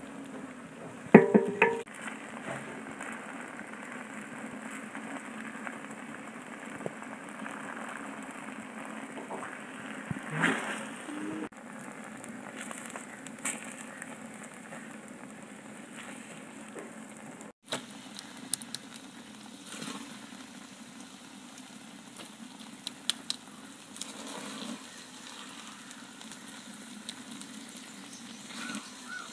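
A metal spoon and spatula scraping and stirring thick, sticky dodol in a metal pan, with a few louder scrapes and knocks over a steady background noise.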